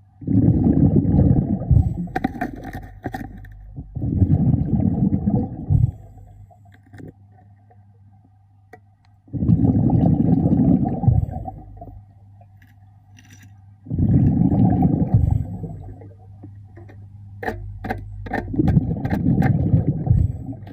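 A diver breathing underwater: five bursts of exhaled air bubbles, each about two seconds long, every four to five seconds. A few sharp clicks come near the end, over a faint steady low hum.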